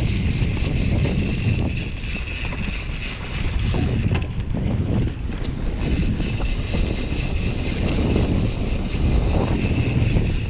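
Wind buffeting the microphone and tyres rolling and rattling over a dirt forest trail on a Santa Cruz Hightower full-suspension mountain bike. There is a steady high buzz that drops out briefly about four seconds in.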